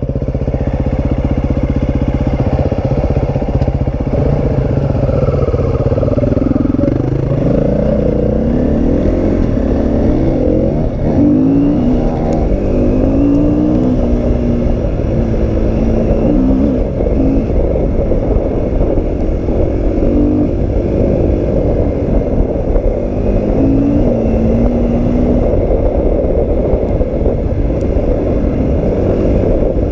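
Husqvarna FE350 four-stroke single-cylinder enduro bike, heard from on board. It idles steadily for about two seconds, then pulls away, revving up and dropping back through repeated gear changes as it rides along a gravel trail.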